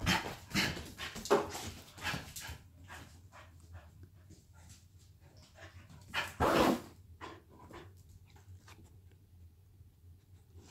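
A small terrier in a frenzy of play, giving a quick series of short barks in the first couple of seconds and one longer, louder bark about six and a half seconds in, with faint ticking of its claws scrabbling on a tile floor in between.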